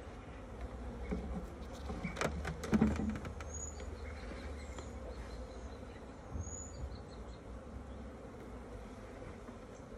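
Honeybees buzzing steadily around an opened hive, with a few wooden knocks and scrapes about two to three seconds in as a wooden brood box is lifted off.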